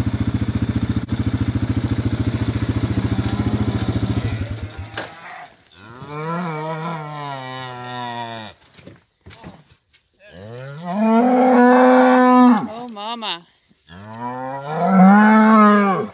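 An engine idles steadily for the first four seconds or so and then cuts off. A black Angus-Simmental cross cow then moos three times at her newborn calf, long calls that rise and fall in pitch, the last two the loudest.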